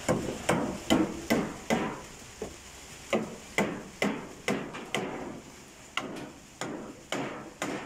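Repeated chopping: a hand tool striking wood with sharp blows, about two a second, in uneven runs.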